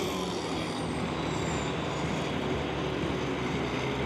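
Antique pulling tractor's engine running steadily at low revs at the end of a pull.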